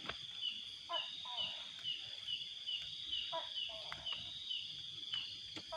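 Night insects chirping in a steady high pulse, about three chirps a second, with a few short lower sounds mixed in.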